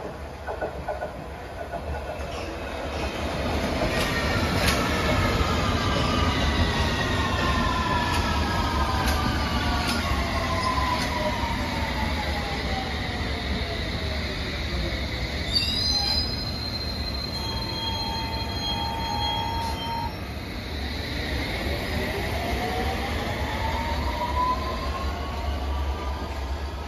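London Underground S7 Stock train running through the station. Its traction motors whine in falling pitch as it slows, steady high tones sound for a few seconds a little past the middle, and a whine rises in pitch near the end as a train picks up speed.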